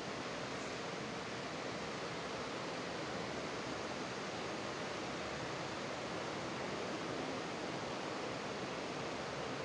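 Steady, even hiss at a constant level, with no other sound standing out.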